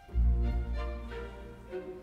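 Background instrumental music, with a deep bass note coming in just after the start under sustained melodic notes.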